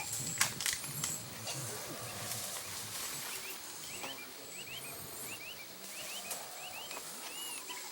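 Guatemalan rainforest sounds over a steady high hiss. Low, rough roaring of distant howler monkeys fades out over the first couple of seconds, a few sharp snaps come near the start, and a bird gives a run of short rising chirps, several a second, through the middle.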